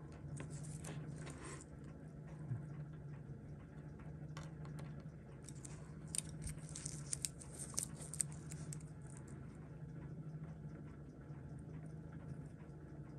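Faint clicks and taps of steel tweezers, watch parts and a movement holder as a Seiko 6139 automatic chronograph movement is taken apart, with a cluster of sharper clicks about six to eight seconds in, over a steady low hum.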